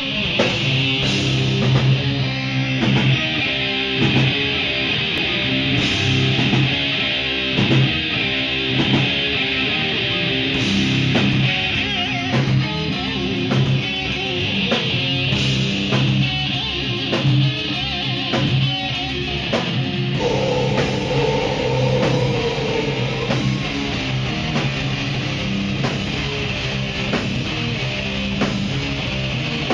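Live heavy metal band playing an instrumental passage: distorted electric guitar riffing over bass and a drum kit. About two-thirds of the way through, a held, wavering note comes in over the riff.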